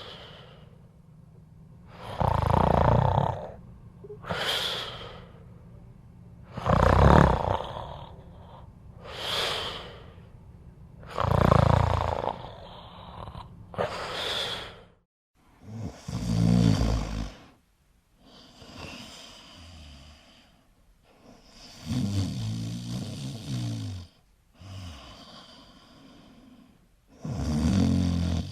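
A person snoring loudly and rhythmically, each heavy inhaled snore followed by an airy exhale. After a short break about halfway through, a different, slower and more buzzing snore takes over.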